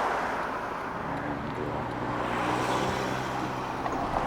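Steady road and engine noise inside a moving car's cabin, with a low hum.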